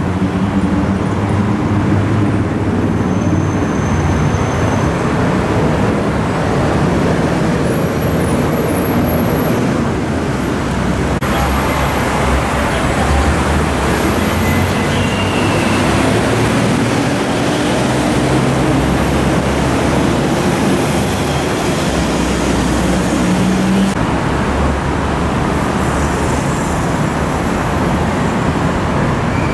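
Steady, loud road traffic: a continuous wash of cars and buses, with engine hum rising and falling as vehicles pass.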